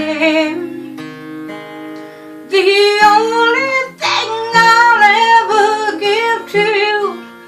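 A woman singing a slow love song to acoustic guitar. Early on the voice drops out while guitar notes ring on for about two seconds, then the singing comes back in and carries on almost to the end.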